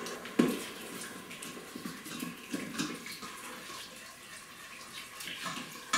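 Thick tomato pulp poured from a can into a multicooker's stainless-steel pot, landing with a loud wet splat about half a second in. A spoon then stirs the sauce in the other cooker's ceramic-coated pot, with irregular wet scrapes and light knocks against the pot.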